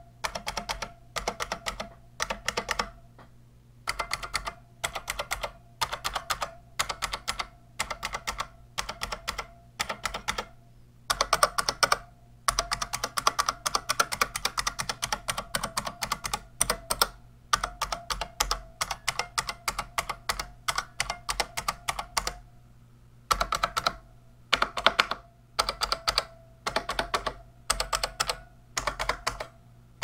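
IBM Model M buckling-spring keyboard (part number 1391401, buckling spring over membrane) being typed on: loud, sharp clacks in fast runs broken by short pauses, with the densest, loudest stretch of typing just before the middle.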